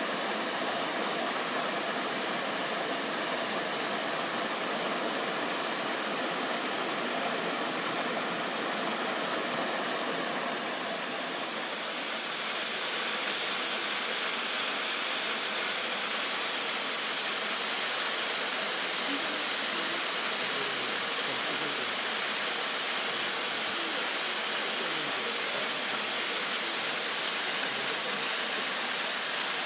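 Waterfall rushing steadily. About twelve seconds in, the rush becomes brighter and slightly louder.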